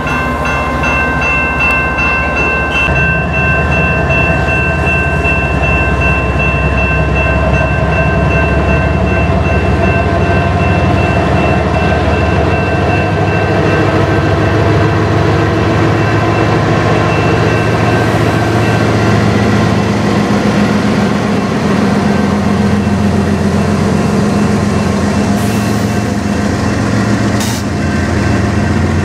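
Double-stack intermodal freight train rolling past at a level crossing, wheels rumbling and clacking over the rails, while the crossing bell rings steadily and then fades out a little past halfway. About halfway through, a mid-train GE ES44AC distributed-power locomotive passes with its diesel engine running.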